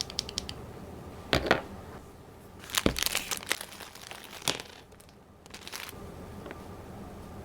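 Plastic packaging crinkling and rustling in a few irregular bursts, with sharp knocks as items are handled while unpacking.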